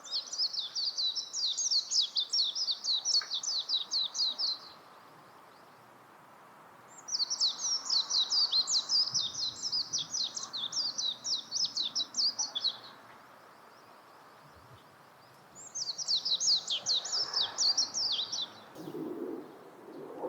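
Warbling white-eye (Japanese white-eye) singing: three long, fast, high twittering song phrases with short pauses between them. A fainter low sound comes in near the end.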